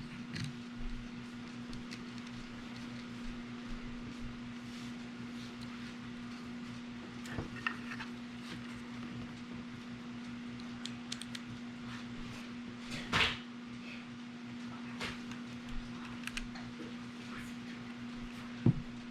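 Faint, scattered clicks and taps of small metal screws, nuts and a tool being handled while a pistol accessory rail is fastened on, over a steady low hum.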